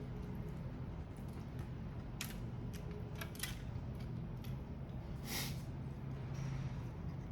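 Shells of grilled prawns and crab being cracked and picked apart: a few scattered sharp clicks and crackles, with one longer crackle about five seconds in, over a steady low hum.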